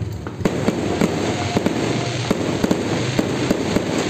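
Fireworks going off: an irregular string of sharp pops and bangs, several a second, over continuous crackling.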